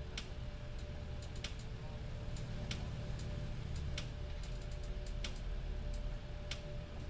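Scattered, irregular sharp clicks, about ten in all with a quick cluster a little past the middle, over a steady low hum and faint hiss.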